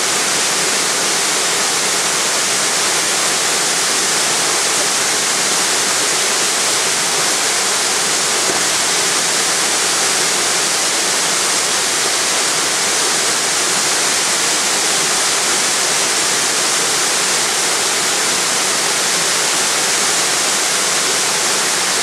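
Waterfall pouring into a plunge pool: a steady, even rush of falling water that does not change.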